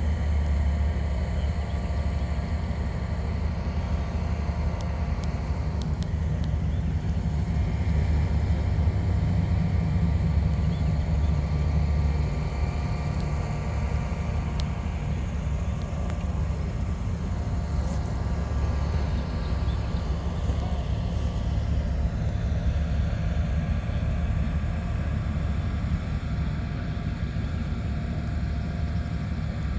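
A 1958 Chevrolet driving slowly past, its engine a steady low rumble that grows a little louder as the car comes close and eases off as it pulls away.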